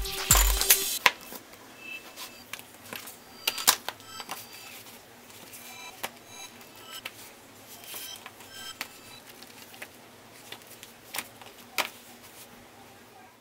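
An electronic music track with a heavy beat cuts off about a second in. After that come soft paper rustling and scattered light clicks and taps as finished notepads are handled, their covers flipped and the pads laid on a table.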